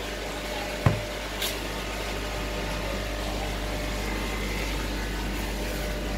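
Steady hum and hiss of aquarium equipment, the air pumps and aeration running. A single sharp click about a second in.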